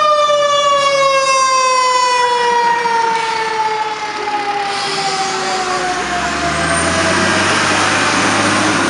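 A fire truck's Federal Q mechanical siren winding down in one long, slowly falling wail. About six seconds in, the ladder truck's engine rumble and road noise grow louder as it passes close by.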